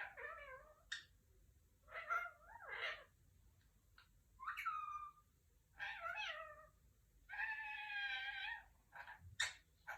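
Pet parrot calling: a series of short, pitched calls about a second apart, with one longer, steadier call near the end.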